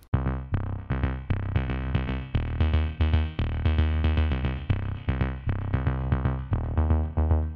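Electronic background music, with synthesizer notes over a drum-machine beat and a strong bass line, cutting in suddenly and running at a quick, even pulse.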